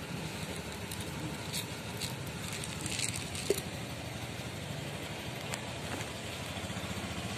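Dry cat kibble poured from a plastic container, pattering and skittering onto concrete in a few short bursts between about one and a half and three and a half seconds in, ending with a sharp click. A steady low rumble runs underneath.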